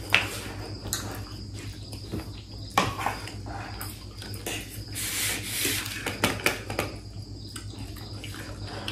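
Eating at the table: sharp clicks of forks against ceramic plates, and a longer noisy slurp of ramen noodles about five seconds in, over a faint steady high whine.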